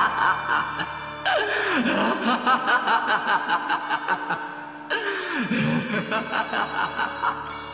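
A man laughing maniacally as an anime villain's laugh, over background music. It comes in two bouts, each opening with a high cry that falls in pitch and then breaking into a quick run of short 'ha' bursts, about five a second, that fade out.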